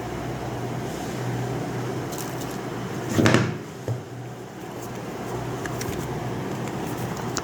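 A steady low hum, with a single loud thump a little over three seconds in, followed by a smaller knock about half a second later and a few faint clicks.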